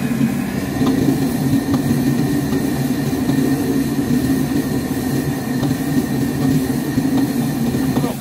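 Commercial gas wok burner and kitchen extraction running: a loud steady low roar, with a few light clinks of a steel ladle against the wok.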